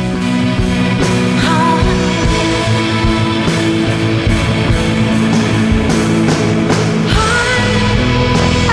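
Live rock band playing: electric guitars and bass holding sustained chords over drums, with a voice singing.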